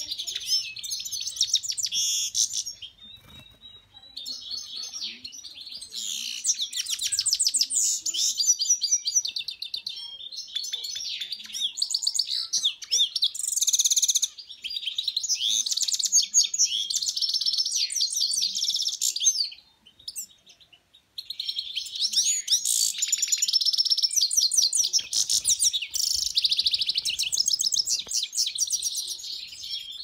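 A caged finch singing long, fast twittering phrases of chirps and rapid trills, broken by short pauses about three seconds in and again near twenty seconds.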